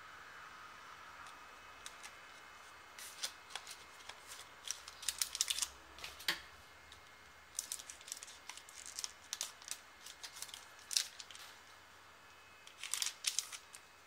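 Trading cards and card packaging being handled: short rustles and crinkles in three spells, with quiet gaps between.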